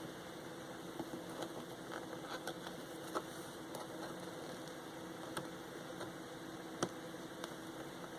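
Faint steady hum with a few light, scattered clicks and taps as small parts are handled during reassembly.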